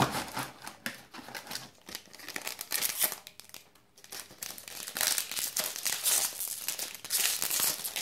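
Crinkling and rustling of foil trading-card booster-pack wrappers being handled and pulled from the box, in several bursts.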